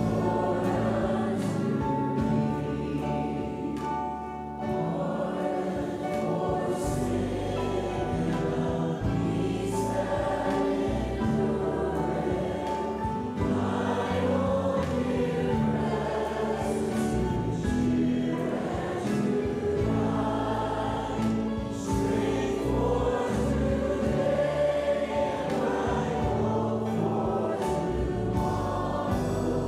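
Church choir singing a gospel song, led by several singers on handheld microphones.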